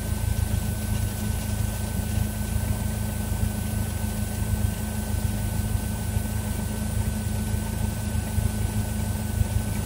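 Cessna 172's piston engine and propeller running steadily at low power, a low hum with a thin, steady higher whine above it, as the plane taxis after landing.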